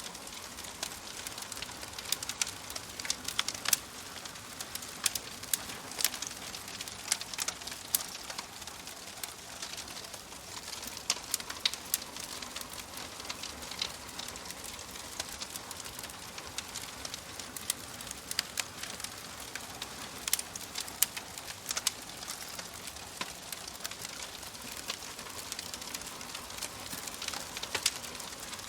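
Crackling fire: a steady hiss with frequent irregular sharp pops and snaps.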